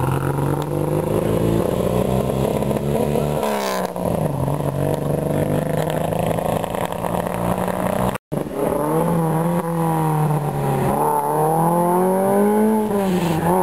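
Competition car engines accelerating hard on a track, their pitch climbing and then dropping at gear changes, once about four seconds in. The sound cuts out for an instant a little past halfway, then another car's engine revs up, with a further shift near the end.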